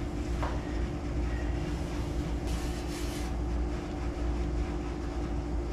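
Steady low machine hum with a constant tone in it, and a brief hiss about two and a half seconds in.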